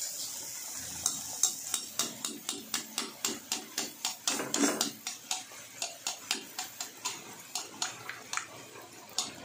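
Poori sizzling as it deep-fries in a kadai of hot oil. From about a second in, a metal slotted skimmer clinks against the pan about three times a second as it presses the poori and splashes oil over it so it puffs.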